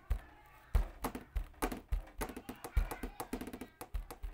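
Background music with a drum beat and a melody.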